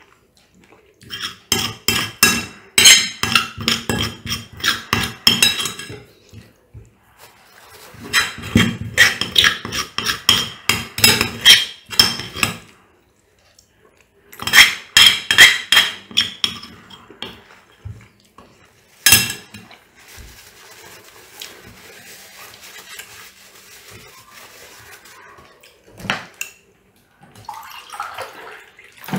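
Metal spoon and fork scraping and clinking against a ceramic plate as the last of the sauce is scraped up. There are three long runs of quick scrapes and clinks, then a single sharp clink, and a few lighter knocks near the end.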